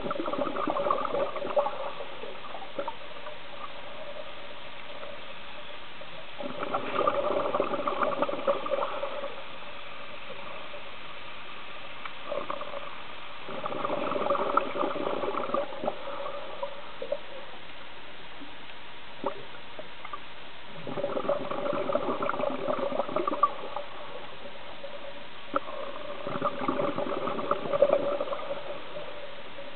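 Scuba diver's regulator exhaust heard underwater: five bursts of exhaled bubbles, a few seconds apart, each lasting two to three seconds, over a faint steady hiss.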